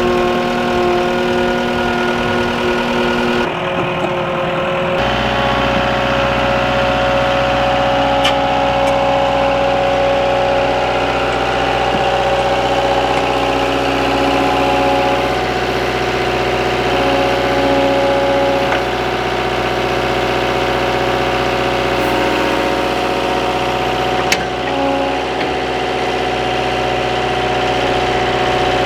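Skid steer engine running steadily, its tone shifting abruptly about four to five seconds in.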